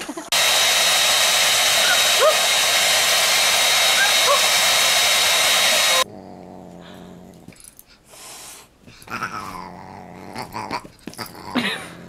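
A loud, steady rushing noise that starts and stops abruptly, with a few faint squeaks in it, runs for the first six seconds. Then comes a softer stretch of a dog growling and whining while playing with a Siamese cat.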